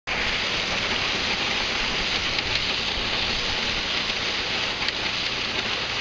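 Combine harvester's corn head working through standing dry corn: a steady, dense rattling hiss of stalks and ears being gathered and snapped, with the machine's low running rumble beneath.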